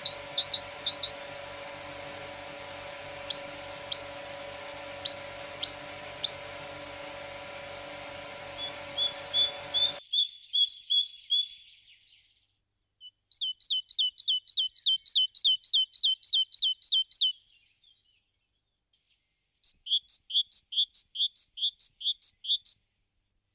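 Great tits singing: several bouts of high, quickly repeated short phrases, with short gaps between bouts. A faint steady hum lies under the first bouts and stops abruptly about ten seconds in.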